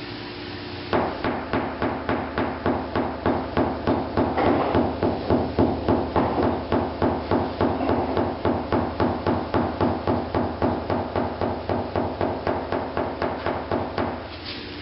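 Rapid, even, light taps of a 16-ounce hammer on a rounded knockdown tool held against a car body panel, about four a second, starting about a second in and stopping near the end. This is the knock-down stage of paintless dent repair, lowering a high spot left after a hail dent was pulled out.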